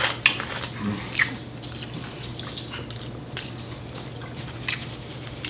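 People biting and chewing fried chicken wings close to the microphone: short wet clicks and smacks, several strong ones in the first second and a half, then sparser, over a faint steady hum.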